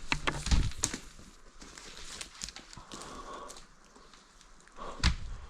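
A quick run of knocks and thumps in the first second, then a single thump near the end.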